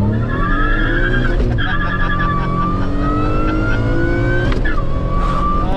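Supercharged Acura TL V6 at full throttle, heard from inside the cabin. The engine revs climb steadily and fall sharply at an upshift about a second and a half in, then climb again to a second upshift near the end. A high whine rises and falls with the revs.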